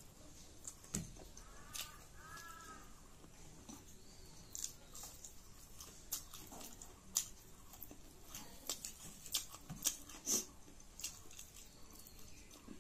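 Close eating sounds: soft chewing and mouth smacks, with fingers mixing rice on a ceramic plate. About two seconds in come two short high-pitched calls.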